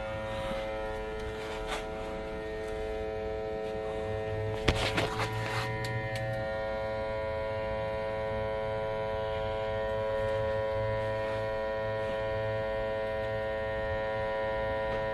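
Steady electric hum from a running machine, holding many even tones, with a brief clatter about five seconds in and a higher tone joining just after.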